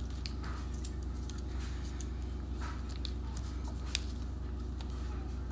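Small clicks and crinkles of eyebrow pencils and their plastic packaging being handled, with one sharper click about four seconds in, over a steady low hum.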